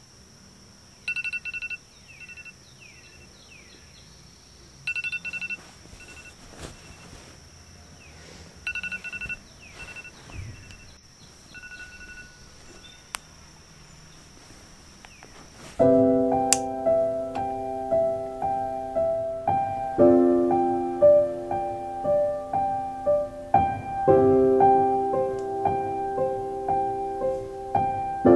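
Short groups of electronic beeps at one steady pitch, repeated every three to four seconds over a faint high whine. About sixteen seconds in, piano music starts and carries on.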